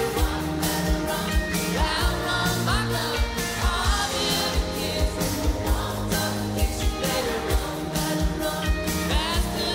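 Indie-pop band playing live: a lead voice singing over a steady drumbeat, bass and keyboards.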